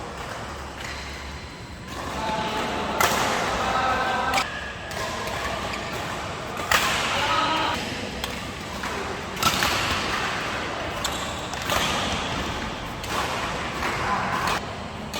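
Badminton rackets striking a shuttlecock in a rally, sharp hits every second or two, with voices in the background.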